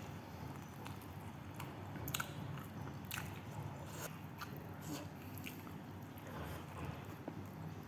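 A person chewing food close to the microphone, with scattered small mouth clicks.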